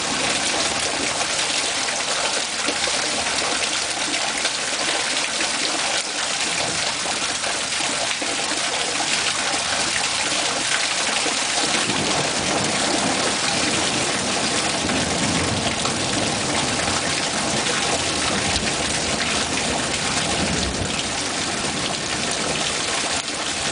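Heavy rain pouring down in a storm, a steady rushing hiss. A deeper low rumble joins about halfway through.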